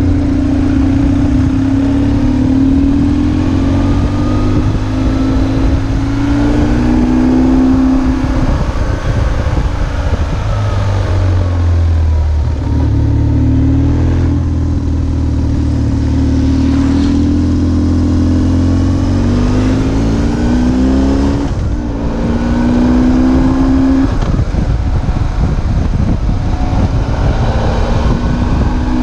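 BMW R1150GS's flat-twin boxer engine pulling through the gears on the road, its pitch climbing steadily and then dropping at each shift or lift of the throttle, several times over.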